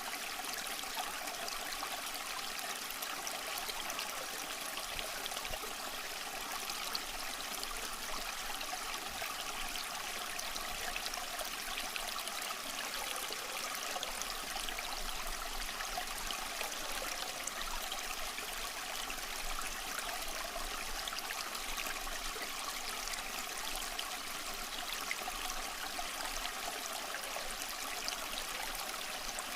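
Water running steadily, like a small stream trickling over stones, an even, unbroken flow.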